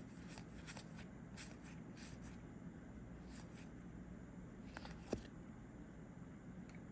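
Faint rubbing and light ticks of trading cards being slid and flipped through the hands, with a sharper tick about five seconds in, over a low steady hum.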